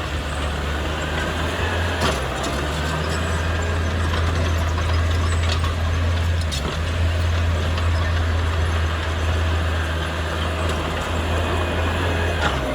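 Heavy diesel engine of earthmoving equipment running steadily at a low pitch, with a short knock about two seconds in and another near the end.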